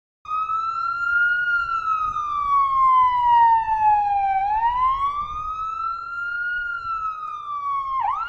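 Emergency vehicle siren sounding a slow wail, one tone gliding up and down about every five seconds. Just before it cuts off it gives a quick dip and rise.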